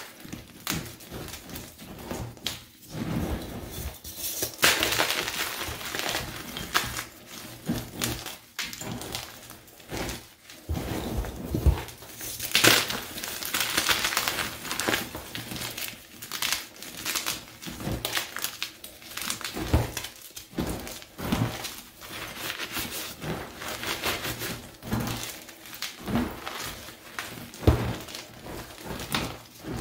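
Hands crushing and squeezing crumbled blocks of plain and dyed Picsil gym chalk, with dry crunching and crumbling throughout and many small sharp cracks as the pieces break.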